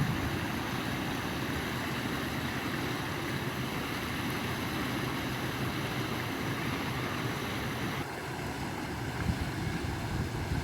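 Steady rush of flowing water, its higher hiss dropping slightly about eight seconds in.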